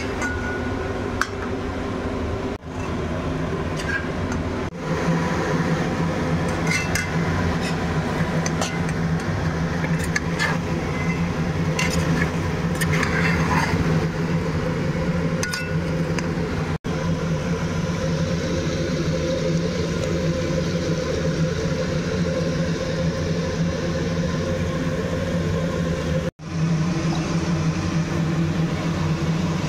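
A metal spoon stirs and scrapes chunks of vegetable in thick masala inside a steel pressure cooker, with scattered clinks against the pot, mostly in the first half. Under it runs a steady low mechanical hum.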